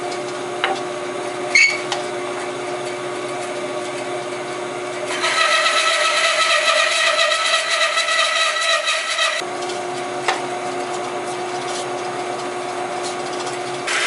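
Bandsaw running steadily with a hum, with a sharp click or two near the start. About five seconds in the blade cuts into a hardwood blank for about four seconds, getting louder with a high whine, then drops back to the plain running hum.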